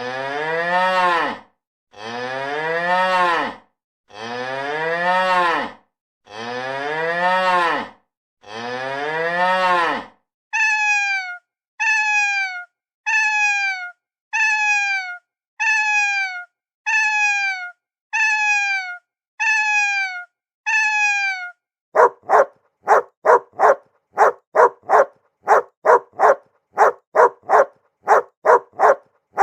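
Five long, low cow moos, followed by about ten short meows from a cat that fall in pitch, then a dog barking quickly, about three barks a second, for the last several seconds.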